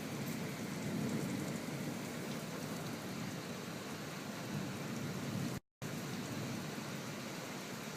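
Steady rain, an even rushing noise with no distinct drops, broken once by a brief cut to silence about five and a half seconds in.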